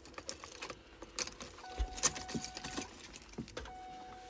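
Keys jangling, with small clicks and rattles, in a car. A faint steady whine comes in about halfway through, stops, and returns near the end.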